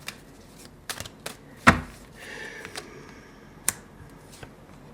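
Tarot cards handled on a table: scattered light clicks and taps, one louder knock about a second and a half in, then a short sliding rustle.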